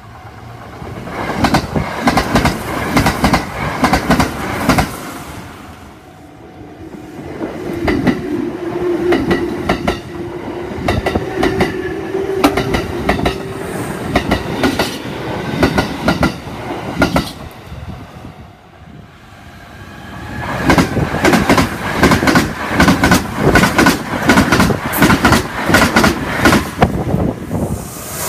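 Trains on the Kintetsu Osaka Line passing over rail joints, the wheels clattering rapidly across them. There are three passes, and the last, starting about 20 seconds in, is the loudest. A steady hum rises under the clatter of the middle pass.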